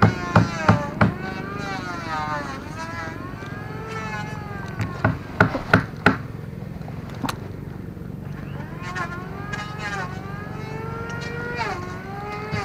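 Background music: a long, wavering melodic line over a steady low drone, with clusters of sharp percussion hits.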